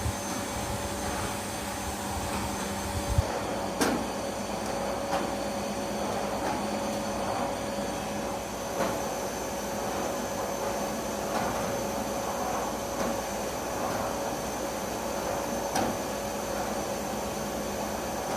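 Vacuum cleaner running steadily on carpet, with a few short knocks along the way.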